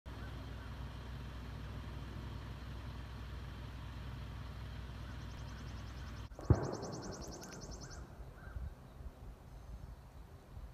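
Steady low rumble of a vehicle engine idling that cuts off abruptly about six seconds in. A single sharp thump follows, with a fast high-pitched trill around it.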